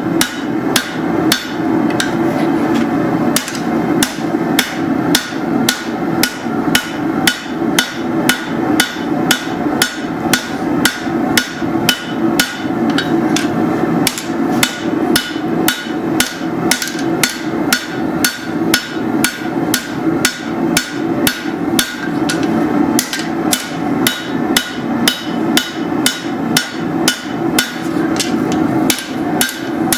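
Hammer striking steel on an anvil, blows about two to three a second, over a steady low hum.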